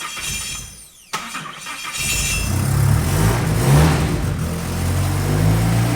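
Turbocharged Nissan S14 Silvia engine, heard in short edited clips: a brief burst of engine noise that cuts off about a second in, then from about two seconds in the engine running and revving up and down.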